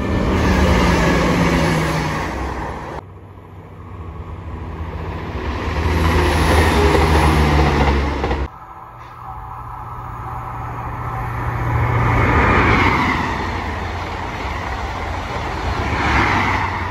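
Diesel passenger trains passing close by at speed: the deep hum of the underfloor engines over the rushing of wheels on rail, each pass swelling and fading. The sound breaks off abruptly about three seconds in and again about eight and a half seconds in, where one pass cuts to the next. The middle pass is a CrossCountry Class 170 Turbostar diesel multiple unit.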